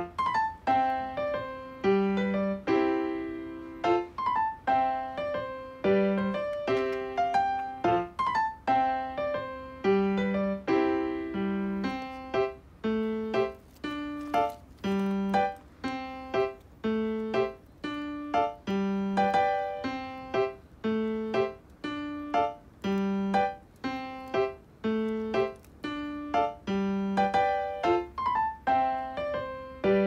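Background piano music: a quick melody of short notes over a low note struck about once every two seconds.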